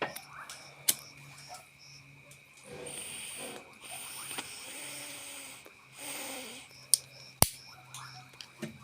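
Metal lighter being handled: several light clicks and one sharp click about seven and a half seconds in, between soft breathy puffs.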